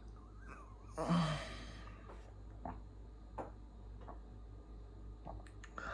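A man's heavy breath out, like a sigh, about a second in, followed by a few faint short clicks.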